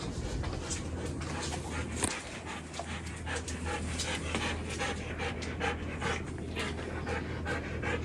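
A dog panting close to the microphone, in quick, even breaths over a steady low hum.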